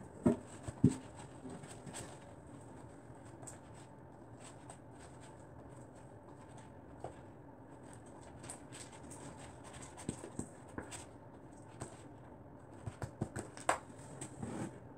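Floam slime (glue slime full of foam balls) being stirred and kneaded in a plastic bowl: faint, irregular crackling and squishing as the foam balls are worked, with a few sharp knocks of the spoon against the bowl about a second in and again near the end.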